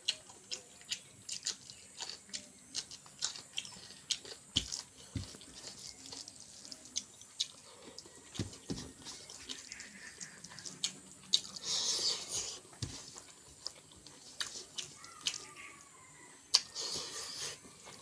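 Close-up eating sounds: a person chewing chicken and rice, with frequent wet mouth clicks and smacks. There are a few louder, noisier stretches of chewing about twelve seconds in and again near the end.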